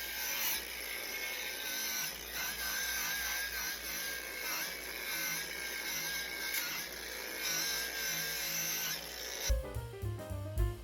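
A handheld power tool running steadily with a harsh hiss and a slightly wavering whine, while working dusty old surfaces. It cuts off abruptly near the end, giving way to upbeat jazz music with drums.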